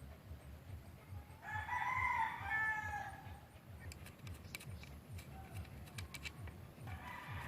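A rooster crowing: one crow lasting about a second and a half, starting a little over a second in, and a second crow beginning near the end. A faint low rhythmic pulsing runs underneath.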